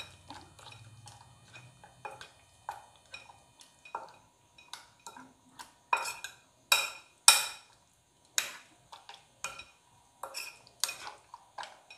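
Raw chicken pieces being mixed by hand in a glass bowl of yogurt-spice marinade, with irregular sharp clicks and knocks against the glass. The loudest knocks come in a cluster about six to seven and a half seconds in.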